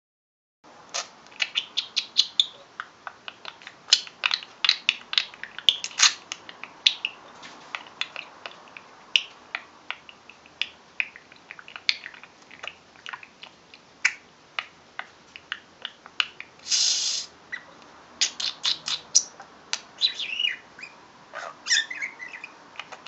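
Budgerigar chattering: rapid clicks, short chirps and warbles, with one short raspy burst about three-quarters of the way through.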